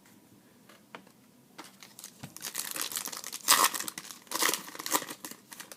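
A trading-card pack wrapper being torn open and crinkled by hand. It is quiet for the first second or so, then comes a run of crackling and tearing with two louder rips past the middle.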